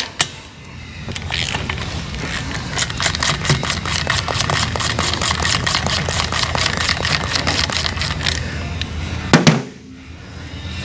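Ratchet wrench clicking in a fast, even run while the spark plugs are backed out of the engine, with one sharp knock near the end.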